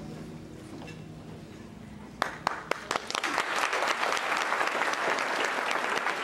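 Music dies away, then about two seconds in a few scattered claps start and quickly swell into full, steady audience applause.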